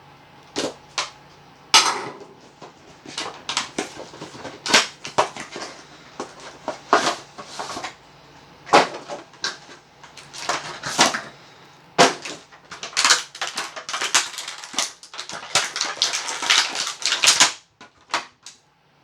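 An action figure's box and plastic packaging being opened and handled: irregular clicks, crinkles and rustles, busiest in the last few seconds before they stop suddenly.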